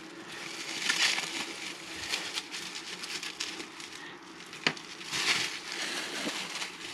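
Packaging being handled and unwrapped: rustling and crinkling that swells twice, with a sharp click in between.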